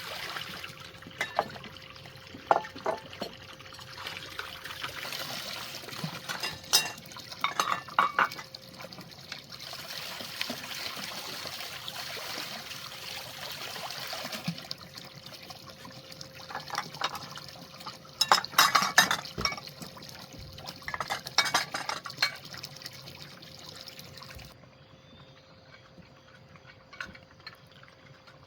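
Water pouring and splashing, broken by clusters of sharp clinks and knocks, and stopping abruptly about 24 seconds in.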